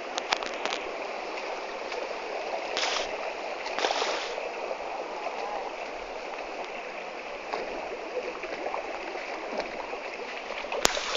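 Mountain stream running steadily, with two brief louder swishes about three and four seconds in and a sharp click near the end.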